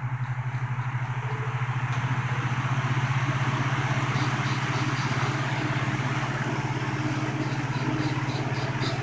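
1950s GE F11W7 reversible box fan running on exhaust: a steady low motor hum, with the rush of air building over the first few seconds as the fan comes up to speed, then holding steady.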